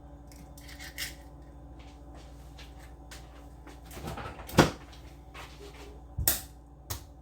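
Eggs being cracked: about four short, sharp knocks of shell being tapped, with the loudest just past halfway and two more near the end, over a faint steady hum.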